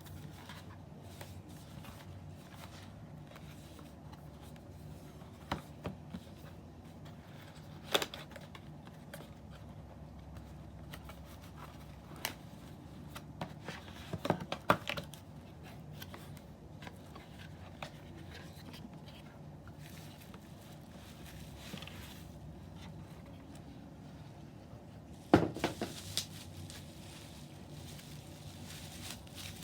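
A steady low hum with scattered sharp clicks, knocks and scrapes, the loudest knock about 25 seconds in.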